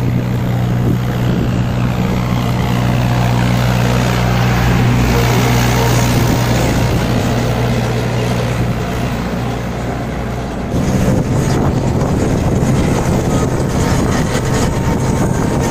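Mahindra 585 DI tractor's diesel engine running under load while hauling a trolley piled with sugarcane, mixed with road and wind noise from alongside. Its steady low drone gives way to a rougher, noisier sound about eleven seconds in.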